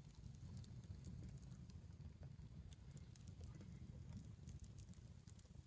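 Near silence: a faint low rumble with scattered small ticks and crackles throughout.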